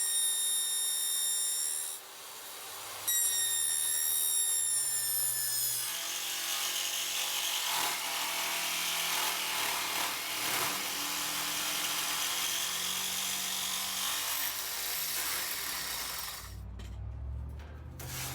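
Power tool cutting 14-gauge sheet steel: a high whine that breaks off briefly about two seconds in, then a rougher, noisier cutting sound. Near the end it gives way to a low hum with scattered clicks.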